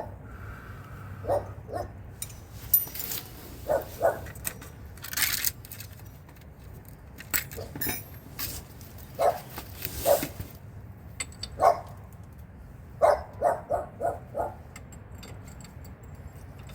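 Metal hand tools and sockets clinking and knocking, a string of short separate clinks with a quick run of four near the end.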